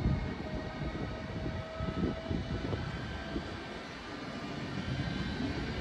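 DSB EB (Siemens Vectron) electric locomotive hauling Twindexx double-deck coaches as it pulls away from the platform. Its drive gives off several thin whining tones that rise slowly in pitch as it gathers speed, over a low rumble from the train.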